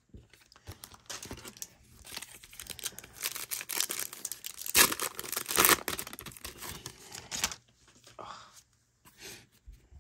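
Clear plastic wrapper of a 1991 Score baseball card pack being crinkled and torn open, loudest about five seconds in. Fainter rustling follows as the torn pack goes quiet.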